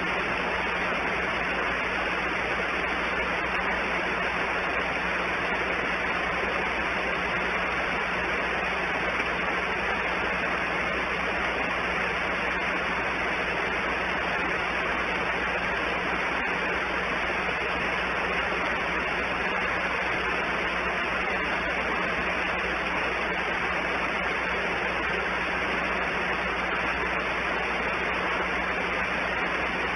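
Steady, even hiss with a faint low hum under it, from the outdoor nest camera's microphone, unchanging throughout.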